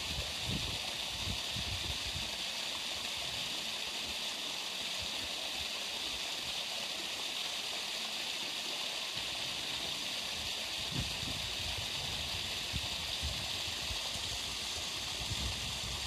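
Steady rushing hiss like running water, with a few brief low rumbles.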